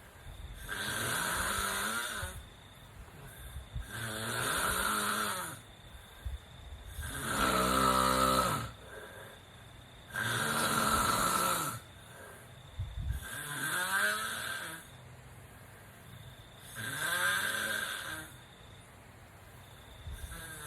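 A sleeping person snoring: a rasping, pitched snore on each breath, coming regularly about every three seconds, six in all with a seventh starting at the end. The snore about eight seconds in is the loudest.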